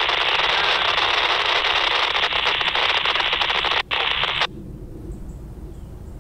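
Scanner radio hissing with crackly static as its squelch opens, with a momentary dropout, then cutting off suddenly about four and a half seconds in.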